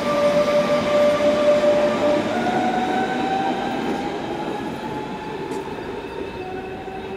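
DB Class 425 electric multiple unit pulling away: its traction equipment whines in a steady tone that starts to rise in pitch about two seconds in as the train gathers speed, over the running noise of the wheels. The sound fades steadily as the train moves off.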